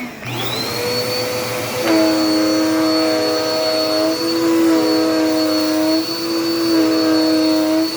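Dirt Devil Power Max vacuum cleaner switched on, its motor spinning up with a rising whine in the first second and then running at a steady high whine. From about two seconds in, a lower pitched hum joins it, cutting out briefly three times as the vacuum is worked.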